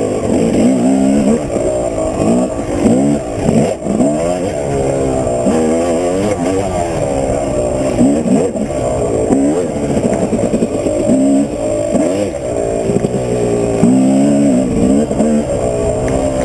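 2005 Yamaha YZ250 two-stroke single-cylinder dirt bike engine with an FMF Q Stealth silencer, revving on and off the throttle while riding a dirt trail; its pitch rises and falls again and again.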